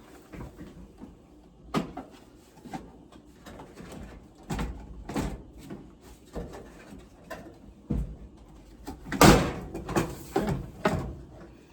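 Plastic dryer console parts being handled and fitted together: a string of irregular clicks, knocks and clatters, the loudest about nine seconds in.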